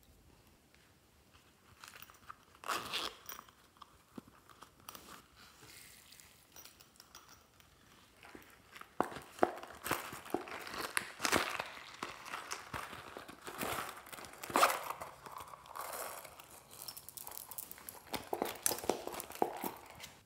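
Handling-and-pouring sounds: a soft plastic pouch crinkling in the hands and small beads and sprinkles dropping onto slime in a glass tray. There are a few scattered clicks at first, then a dense run of small clicks and crackles from about halfway through.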